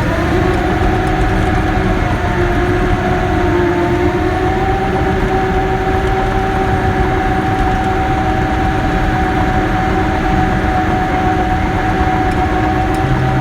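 Caterpillar D6K bulldozer running steadily at high revs. A held whine sits over the engine noise and steps up slightly in pitch about four seconds in.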